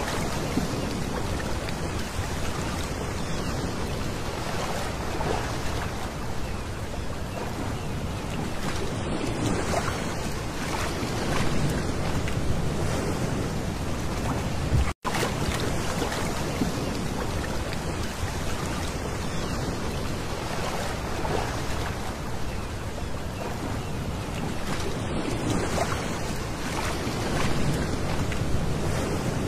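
Small waves washing onto a pebble beach: a steady wash of surf. The sound drops out for an instant about halfway through.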